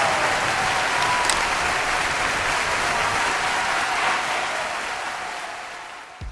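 Crowd applause, fading out over the last couple of seconds.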